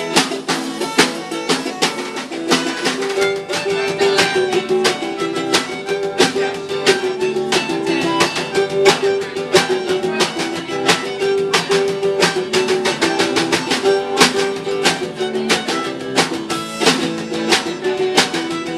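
Live acoustic band playing a fast antifolk song: ukuleles and guitar strummed hard and steadily, with a drummer keeping time on the kit.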